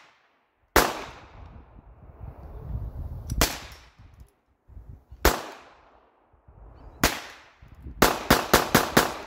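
Handgun fire from a Hi-Point .380 ACP pistol and a Heritage Rough Rider revolver. Four single shots about two seconds apart, then a rapid string of about six shots near the end, each sharp crack trailing off in echo.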